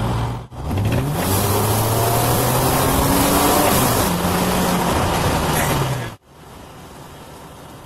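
Toyota 1MZ-FE V6 engine heard from inside the car, revving hard under acceleration with its pitch rising and shifting about four seconds in. About six seconds in the sound cuts off abruptly, leaving much quieter steady road noise.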